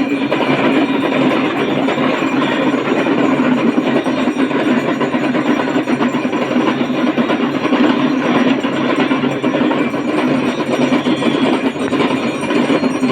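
Damru drumming: fast, continuous rattling strokes of the hourglass hand drums, held steady and unbroken.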